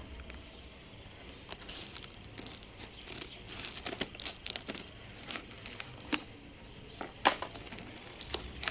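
Cardboard parcel wrapped in plastic packing tape being cut with scissors and torn open by hand: irregular crinkling, tearing and snipping, with one sharper snap about seven seconds in.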